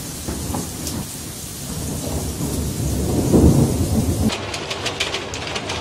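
Steady rain, with a low rumble of thunder swelling about three seconds in.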